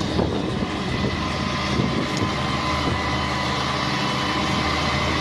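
Heavy machine's engine running steadily, with a steady whine above it.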